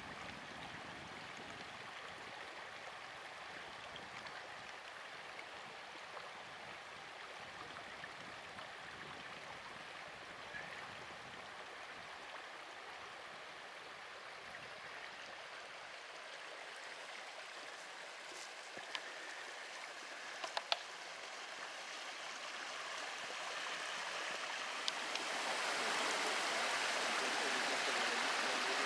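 Shallow woodland stream running over stones, a steady babble of water. It grows louder about three-quarters of the way through, as a small cascade pouring over a rock step comes close, with a few sharp ticks a little before.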